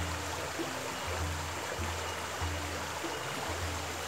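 Fast-flowing mountain stream rushing steadily, with faint background music and a low bass line coming and going underneath.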